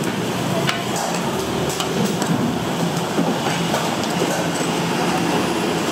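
Steady rushing noise of a busy breakfast-shop kitchen, with a few light clicks and knocks scattered through it.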